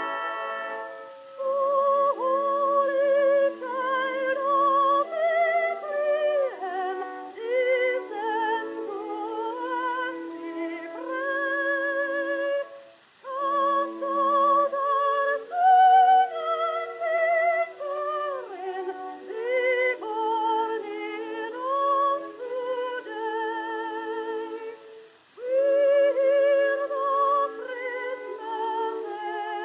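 Background music: a melody of held notes with wide vibrato and occasional sliding pitches over sustained chords. A steady held chord ends about a second in, before the vibrato melody comes in.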